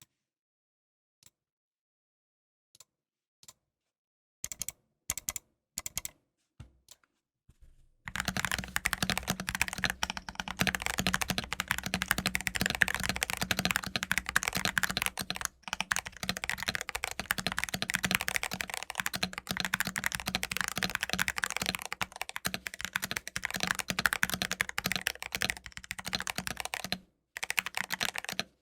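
Higround mechanical keyboard with TTC Titan Heart switches being typed on: a few single key presses, then a few short groups, and from about eight seconds in a steady run of fast typing with two brief pauses.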